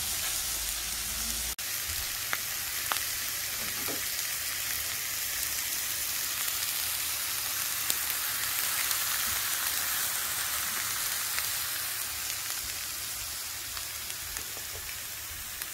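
Butterflied conger eel fillets frying on a hot flat griddle plate: a steady sizzling hiss with a few faint pops, briefly dipping about one and a half seconds in.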